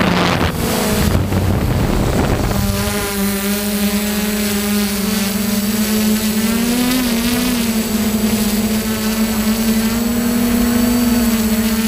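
Multirotor drone with DJI E300 motors and propellers running close to the microphone: a steady whining hum whose pitch wavers slightly as the motors adjust. For the first two or three seconds a rushing wind noise on the microphone covers it.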